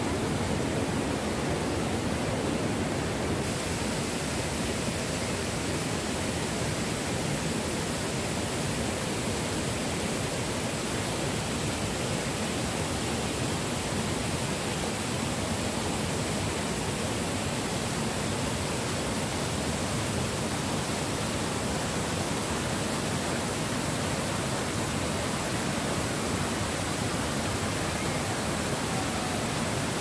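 Water rushing steadily over the rocks of a waterfall and its rocky cascades, a constant even roar of whitewater.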